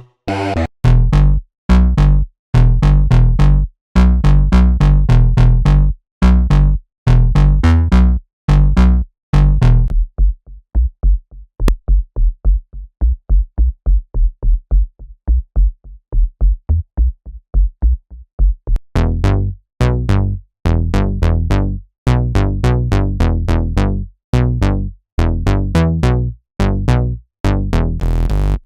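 SynthMaster One software synthesizer preset playing a sequenced riff: a chopped, bass-heavy pattern of short punchy notes. From about ten seconds in it drops to a quieter run of rapid, muffled notes, and the full bright pattern returns at about nineteen seconds.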